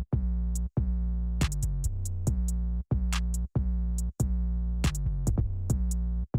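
Electronic hip-hop beat: deep sustained bass notes broken by brief gaps, with sharp drum-machine and hi-hat hits.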